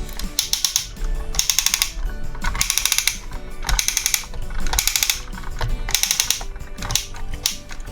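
Background music with a steady beat, and a burst of rapid, high-pitched clicking about once a second.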